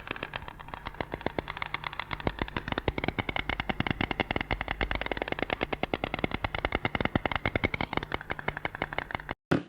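A bird's fast, even rattle of sharp clicks, more than ten a second, that cuts off suddenly near the end.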